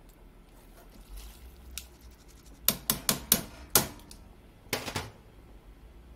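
Sharp clicks and knocks from kitchen utensils at a stainless steel pot while shirataki noodles are laid into a simmering stew: a quick run of about five a little under halfway through, then two more a second later.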